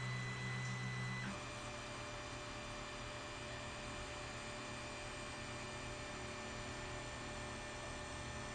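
Creality Ender 3 3D printer running: fans humming and stepper motors whining as the print head and bed move at the end of a print. A louder low hum cuts out about a second in, leaving a quieter steady hum with thin high tones.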